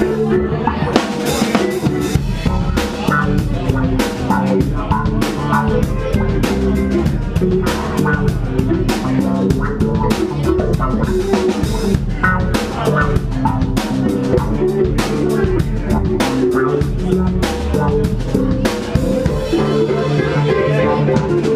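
Live band playing loud amplified music with no singing: a Tama drum kit keeping a steady beat with snare and bass drum hits, over electric guitar and keyboard.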